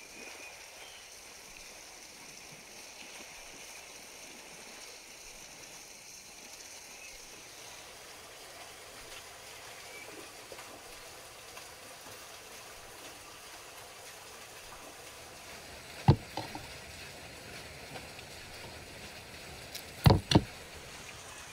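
A steady, faint watery hiss in the background, broken by one sharp click about three-quarters of the way through and a quick pair of sharp clicks near the end. The clicks come from hooked chicken legs being hung on a wire cage.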